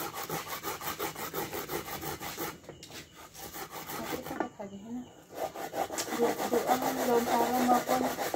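Coconut being grated by hand against a wooden-handled grater into a metal pot: fast, even rasping strokes that pause briefly twice midway.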